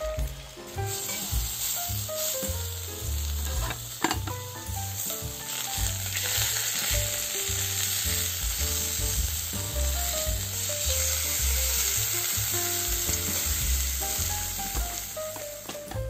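Steak sizzling steadily in a cast-iron skillet over a wood fire, with a sharp tap about four seconds in, over background music.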